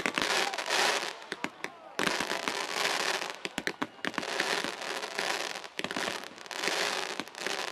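Fireworks display: aerial shells bursting with dense crackling and many sharp bangs. It comes in waves, with brief lulls about a second or two in and again near six seconds.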